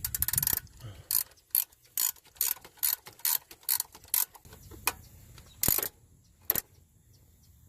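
Socket ratchet wrench clicking: a quick run of clicks, then short back-and-forth strokes about two or three a second, slowing to a few spaced strokes before stopping, as bolts are tightened.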